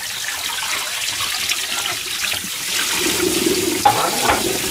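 Kitchen tap running into a stainless steel sink while a pot is scrubbed and a frying pan rinsed under the stream, with a single sharp clink of kitchenware about four seconds in.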